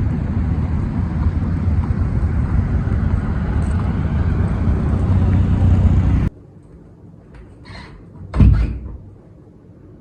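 Steady low rumble of a car on the move, heard from inside; it cuts off abruptly about six seconds in, leaving a quieter stretch with a single thump near the end.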